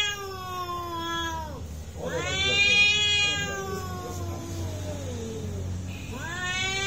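Cats yowling at each other in a face-off: long, drawn-out threat yowls. One fades out about a second and a half in, a second starts at about two seconds and falls in pitch, and a third begins near the end.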